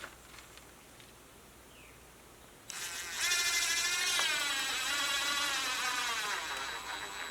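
Cordless drill starting about three seconds in and running for roughly four and a half seconds, driving a screw into wood. Its pitch wavers and drops near the end under load.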